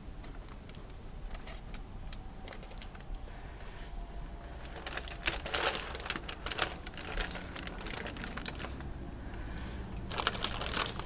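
Plastic sheeting crinkling, with light clicks, as gloved hands move about on it. The sound comes in a cluster about halfway through and again near the end.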